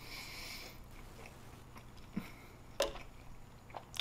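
A person chewing fast food close to the microphone, with a few sharp wet mouth clicks. A brief rustle at the start.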